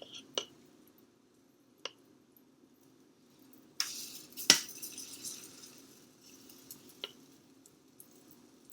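A spoon clinking a few times against a bowl and pan as small spoonfuls of pancake batter are dropped in, with a short sizzle about four seconds in, when the loudest clink comes.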